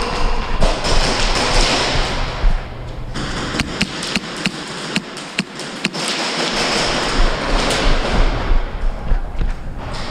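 Airsoft gameplay: a quick run of sharp clicking shots from airsoft guns around the middle, between stretches of loud rustling, thudding movement and handling noise against the microphone.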